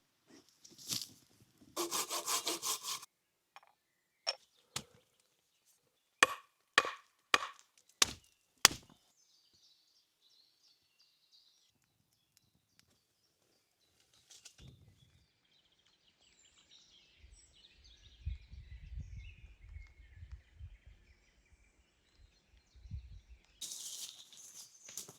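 Wood being worked with hand tools: a short burst of rapid sawing strokes, then about seven sharp, loud chopping strikes on wood. Later comes a stretch of low rumbling and rustling handling noise.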